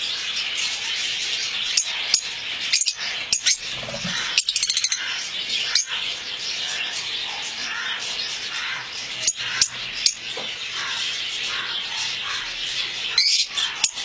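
A colony of lovebirds (masked and Fischer's) chattering with a dense, continuous twitter of high chirps, broken by a few sharp clicks.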